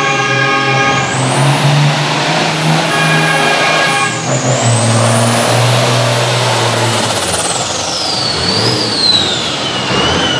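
International Harvester tractor's turbocharged diesel engine under full load pulling a sled, its high turbo whistle rising and holding, then falling away over the last few seconds as the tractor slows to a stop. A steady high tone sounds twice, briefly, near the start and about three seconds in.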